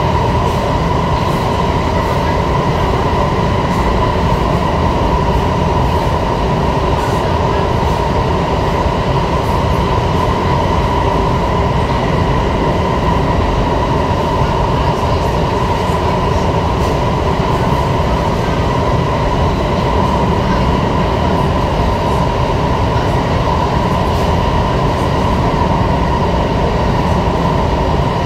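Inside an SMRT C151 metro car running at steady speed between stations: a constant rumble of wheels on track with a steady high tone that neither rises nor falls.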